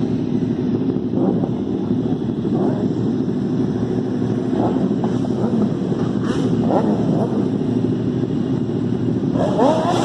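Motorcycle engine running on the move, with wind noise on the microphone. Near the end the engine pitch climbs and then holds.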